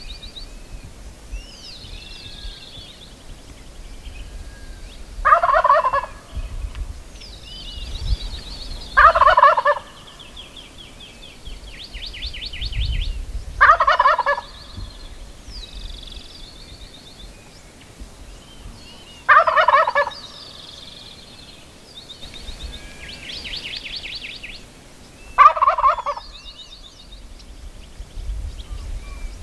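Gould's wild turkey gobbling five times, each gobble a short rattling call, coming every four to six seconds. Small songbirds chirp and twitter between the gobbles.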